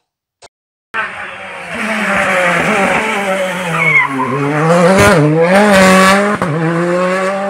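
A rally car's engine is driven hard through a hairpin. Its pitch drops as it slows into the bend and climbs again as it accelerates out, with a brief tyre squeal in the turn. The sound starts about a second in, after a short silence.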